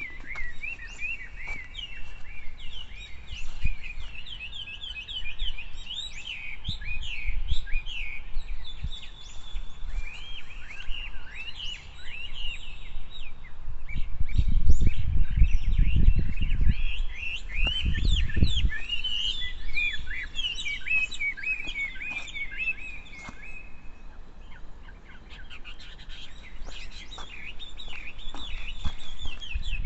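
Small birds chirping and singing, with many quick, overlapping calls throughout. Past the middle, a low rumble rises twice and is the loudest sound.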